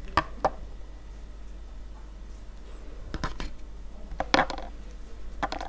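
Scattered light clicks and knocks of a wooden plate and food being handled on a tabletop, a few single taps early on and a louder pair of clatters a little past four seconds in.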